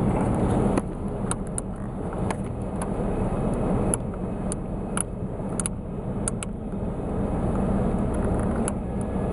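Steady low hum of the Chevy Astro van running, with light, scattered plastic clicks and taps as a dashboard bulb socket is pushed in and twisted behind the control panel.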